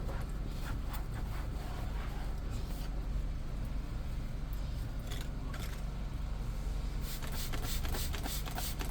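Hand scrubbing of a vinyl car seat during cleaning: soft scraping strokes that turn into a quick run of rapid strokes about seven seconds in, over a steady low hum.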